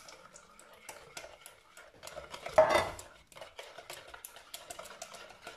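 A spoon stirring liquid batter of eggs, sugar and melted butter in a plastic bowl, with many light clicks and scrapes against the bowl. There is one louder knock about two and a half seconds in.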